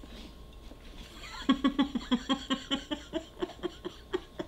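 A woman laughing, a run of short ha-ha pulses at about five a second that starts about a second and a half in and fades toward the end.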